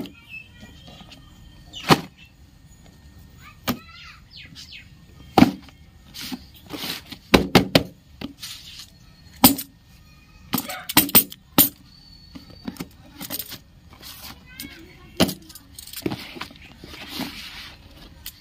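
Cardboard boxes being handled, set down and slid against each other on a woven plastic tarp: irregular sharp knocks and scrapes, with quick clusters of knocks around a third of the way in and again just past halfway.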